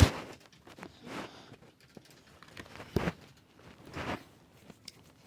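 A sharp loud thump at the start, then scattered knocks, clicks and rustles of things being handled and moved about, with one sharper knock about three seconds in.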